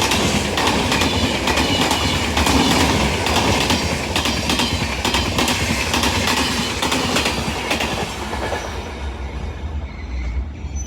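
Express passenger train passing at high speed, its steel wheels clattering rapidly over the rail joints with a steady rush of noise. The clatter fades away near the end as the last coaches go by, leaving a low rumble.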